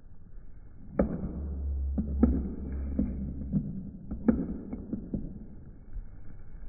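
A series of sharp knocks and clicks, some ringing briefly, with a low hum underneath for the first few seconds after they begin.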